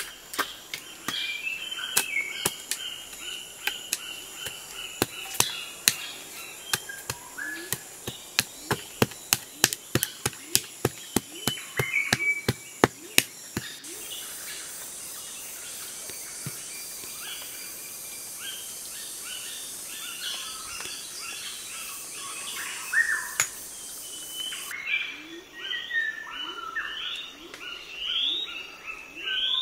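A hoe chopping into stony soil, sharp strikes about two a second, with birds chirping. After about 14 s the strikes stop and birdsong carries on over a steady high hiss, then repeated rising bird calls near the end.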